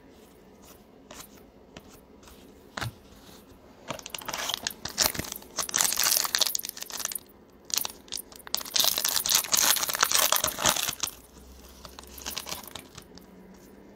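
A plastic trading-card pack wrapper being torn open and crinkled, in two loud stretches of crackling a few seconds each, with a few small clicks before them.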